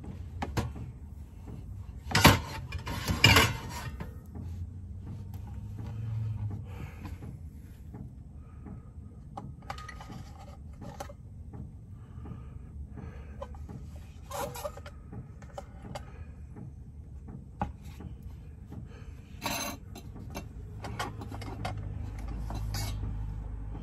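Stainless steel dog bowls and their metal clips knocking and clinking as they are handled with a dish towel, with the two loudest knocks about two and three seconds in and scattered lighter clinks later, over a faint low hum.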